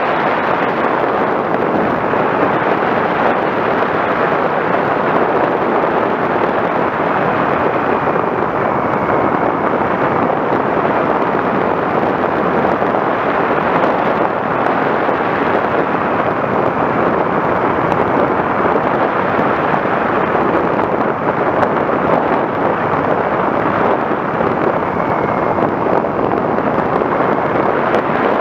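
Onboard-camera audio of an FPV Raptor RC plane in flight: a loud, steady rush of wind and propeller noise, with a faint motor whine that wavers slightly in pitch.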